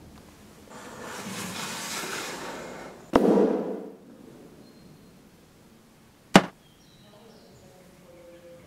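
Sound effects for a stop-motion short: a rushing whoosh that swells for about two seconds and ends in a heavy thud, then a single sharp crack about six seconds in, the hit of an ink tin coming down on a rubber-glove hand.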